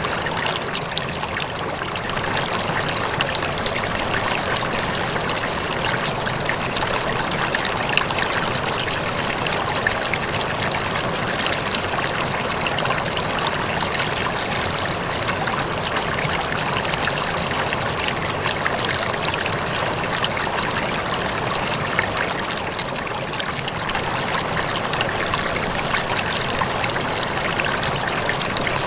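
Aquarium water trickling and splashing steadily, with fine crackles throughout.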